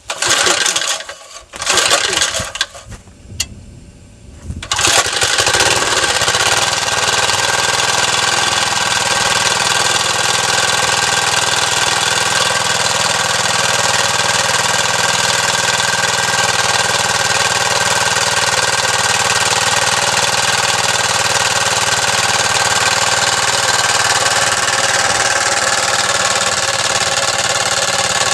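Small single-cylinder 3 HP Briggs & Stratton gasoline engine on a Craftsman air compressor being started: two short bursts, then it catches about five seconds in and runs steadily.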